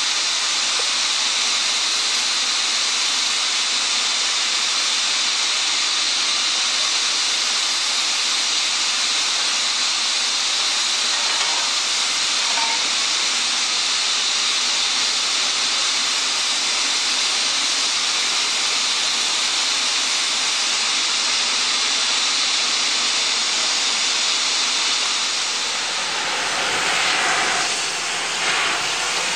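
Steady hiss of steam from a standing NRZ 16A Garratt steam locomotive. Near the end it gives way to a rougher noise with more low rumble.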